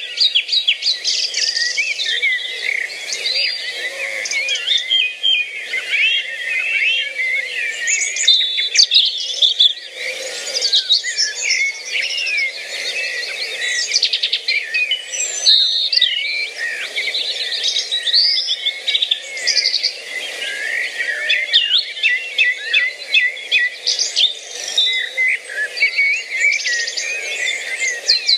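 A dense chorus of many birds singing and chirping at once, with quick overlapping whistles and trills, over a steady low background hum.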